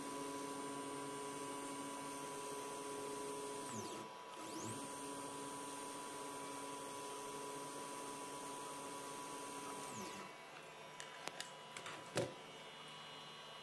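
800 W CNC spindle running with a steady high whine while engraving aluminium on the rotary axis. About four seconds in it winds down and spins back up. Near ten seconds it winds down and stops, followed by a few light clicks and one sharp knock.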